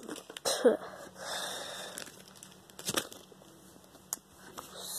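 Rustling and crinkling of bedding and a doll's clothes as a toy baby doll is handled, with a few sharp handling knocks, the loudest about half a second in.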